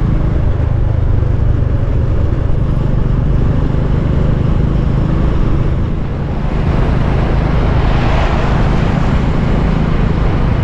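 Motorcycle engine running steadily at road speed, with wind and tyre noise. About seven seconds in, a louder rush of hiss swells and then eases.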